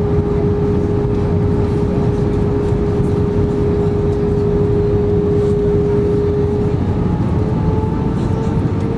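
Airbus A320 cabin noise heard inside the cabin: a steady jet-engine drone and rushing air. A steady hum runs through it, breaking off about seven seconds in and coming back slightly higher.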